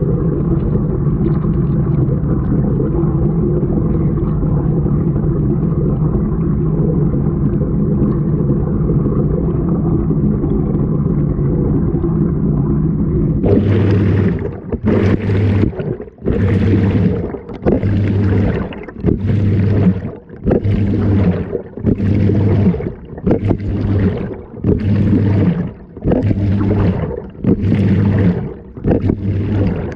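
Washing machine heard from inside the drum: a steady low rumble, then about halfway in a rhythmic churning of about one stroke a second, each stroke a low hum with a swish.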